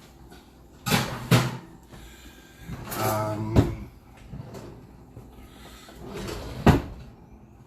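Kitchen clunks and knocks as a pan of chicken goes into the oven: the oven door and pan are handled with several sharp knocks, the loudest near the end.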